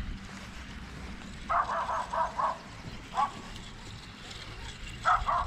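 A dog barking: a quick run of short barks about a second and a half in, a single bark, then another quick run near the end.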